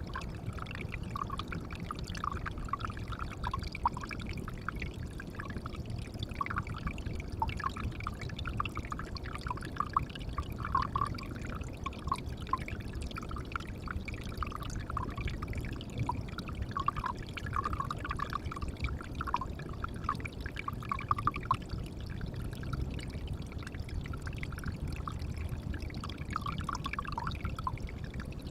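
Water pouring steadily into a pond: a continuous low rush with irregular small plops and splashes on top.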